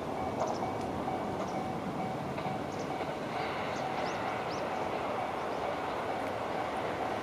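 Level crossing warning bell ringing in a fast, steady repeat over the steady rumble of a JR Gotemba Line train running through the crossing.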